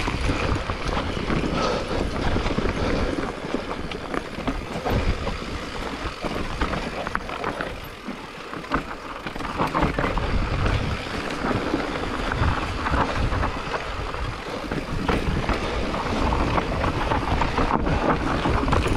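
E-mountain bike riding down a rough trail: tyres and frame rattling and clattering over dirt and rock, with wind buffeting the microphone.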